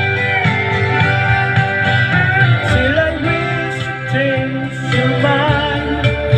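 Guitar-backed country folk music in an instrumental break between verses: a melody line over steady chords.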